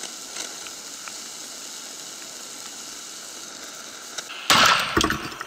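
Butane gas torch hissing steadily as its flame heats a sealed energy-drink can. About four and a half seconds in comes a sudden loud bang with crackling spatter lasting under a second, as the heated can bursts.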